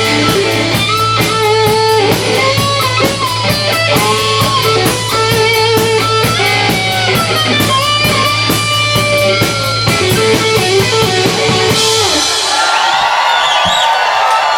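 Live rock band playing an instrumental passage on electric guitar, bass and drums, which stops about twelve seconds in; crowd cheering and whistling follows near the end.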